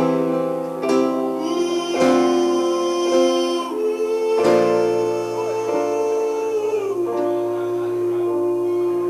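Live music: acoustic guitar with a singing voice. Plucked notes come in the first half, then a long note is held that slides lower near the end.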